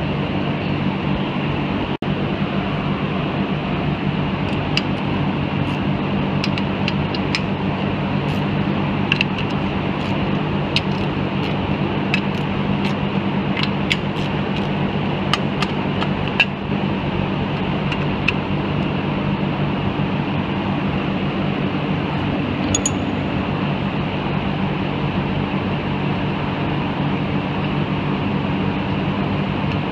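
Steady mechanical hum with a low drone of several steady tones, the shop's background. Over it, light metal clicks come scattered from about four to seventeen seconds in, from a socket ratchet and the bolts of a rear differential cover being loosened, with one sharper metallic ping about twenty-three seconds in.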